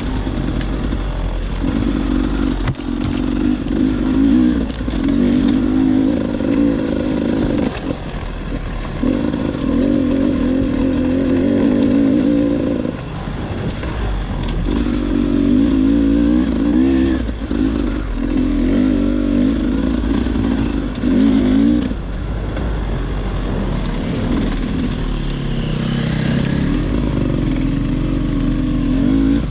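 Off-road dirt bike engine running under changing throttle, pulling hard in stretches of one to four seconds that are broken by brief roll-offs.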